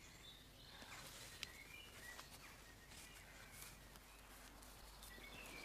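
Near silence with faint, short high-pitched chirps now and then, and a few soft clicks.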